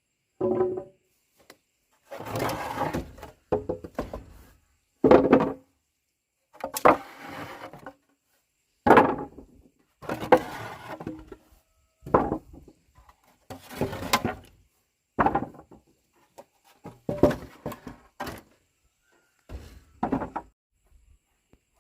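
Irregular scrapes and knocks of hands-on building work, about a dozen separate strokes, each under a second or two, with silent gaps between.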